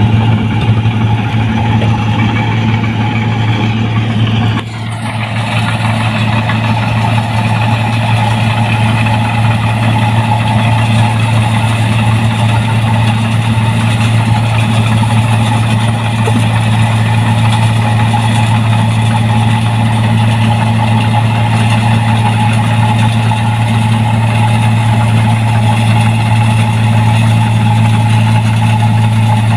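New Holland 1545 combine harvester running while harvesting rice: a constant low engine drone with a steady higher whine over it. The sound dips and shifts briefly about five seconds in, then carries on unchanged.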